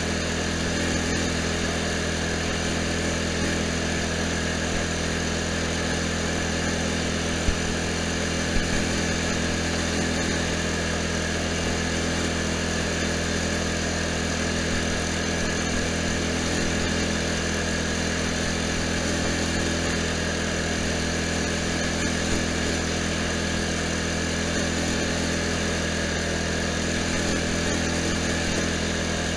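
Poulan Pro riding lawn tractor's engine running at a steady speed as the tractor drives along, with two brief knocks about seven and eight and a half seconds in.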